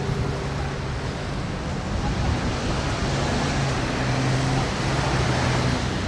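Ocean surf washing onto a sandy beach: a steady rush of noise that swells a little about two seconds in, with a low hum underneath.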